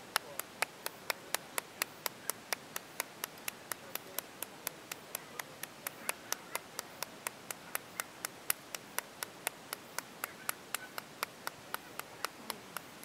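Steady rhythmic hand-clapping, about four sharp claps a second, starting and stopping abruptly.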